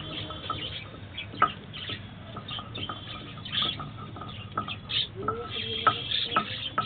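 A flock of budgerigars chattering and chirping in an aviary, a dense stream of short high chirps, with a few sharp taps among them.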